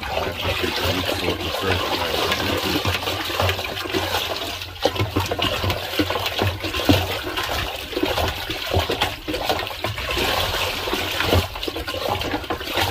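Water in a large drum being stirred by hand with a stick to mix in fertilizer: continuous swishing and sloshing with irregular small splashes.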